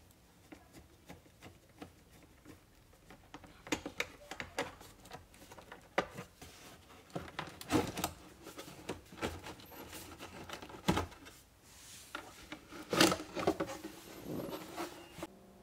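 Plastic under-dash air duct being worked loose and pulled out by hand: scattered plastic clicks and knocks with rubbing and scraping between them, the loudest knocks about eight and thirteen seconds in.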